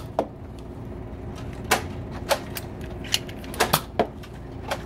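Nerf foam-dart blasters firing and darts hitting things: about eight short, sharp clicks and snaps at irregular intervals.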